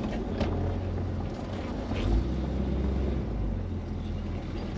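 Old truck's engine running at low speed, heard from inside the cab as a steady low rumble that swells briefly about two seconds in.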